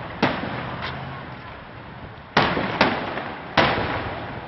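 Aerial firework shells bursting: about five sharp bangs, each trailing off in an echo. One comes just after the start and a fainter one follows under a second later, then three more come close together from about two and a half seconds in.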